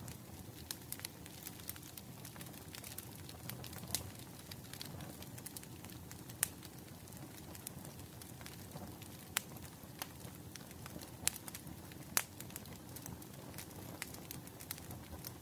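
Wood fire burning: a steady low rumble with frequent sharp crackles and pops, a few of them louder than the rest.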